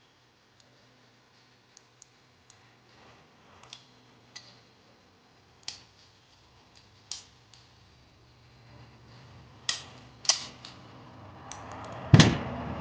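Metal clicks and clacks of 1911 .45 ACP pistol parts being fitted together by hand, sparse at first, then a few louder clacks in the last few seconds as the reassembly is completed.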